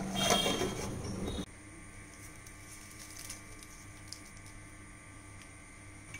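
Mushroom curry bubbling at the boil in a metal pot; about a second and a half in, the sound cuts off abruptly to a low steady hum with a few faint light taps.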